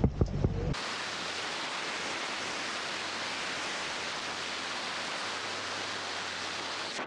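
Steady rushing hiss of wind and water from a speedboat running fast across a lake, cutting in suddenly about a second in.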